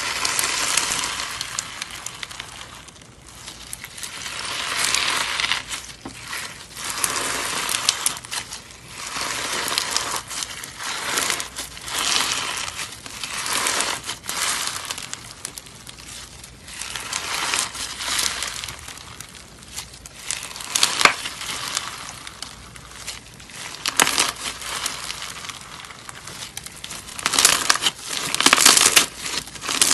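Green slime packed with small beads, squeezed and stretched by hand, crackling and crinkling in repeated swells every second or two.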